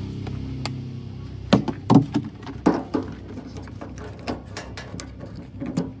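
Hands handling a plastic oil can and a screw-on metal filler cap on a tractor's sheet-metal bonnet: a string of knocks and clicks, loudest about a second and a half in, over a low hum that fades away in the first second.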